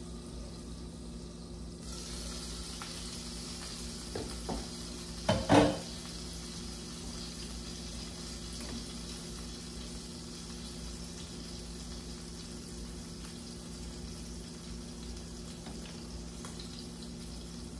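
Food sizzling in a hot pan on a kitchenette cooktop; the sizzle starts suddenly about two seconds in and then goes on steadily. A few knocks and one loud clatter of cookware come at about five seconds.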